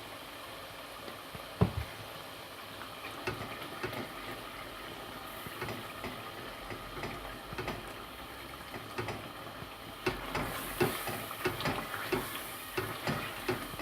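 A spoon stirring and scraping chicken masala with yogurt as it fries in a pan, over a low sizzle. There is a sharp knock about a second and a half in, and the scraping and sizzle get busier in the last few seconds.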